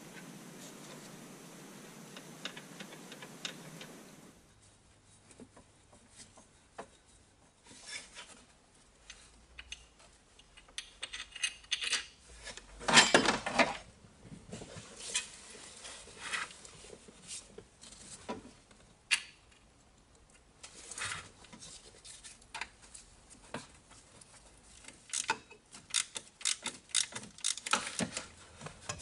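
Metal tools and car parts clinking and scraping in irregular bursts, with a longer, louder scrape about thirteen seconds in. The first four seconds hold a steady hiss that stops abruptly.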